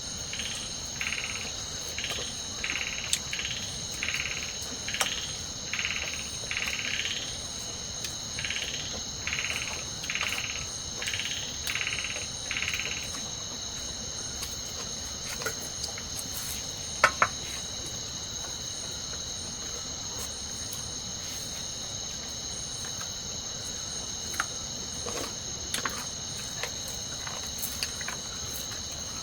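Steady high-pitched chorus of crickets and other insects. For the first 13 seconds or so, a rasping call pulses in about twice a second, then stops. A few sharp clicks come later, the loudest about 17 seconds in.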